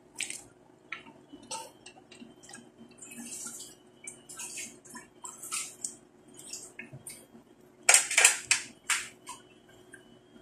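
Wooden spatulas stirring and scraping through thick, saucy pork stew in a stainless steel pot, with wet squelches and irregular clacks against the pot. A louder run of knocks comes about eight seconds in.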